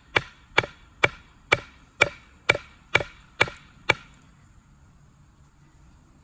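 Axe head being knocked into the top of a wooden axe handle to split it a little for a wedge: sharp wooden knocks, about two a second, nine strokes, stopping about four seconds in.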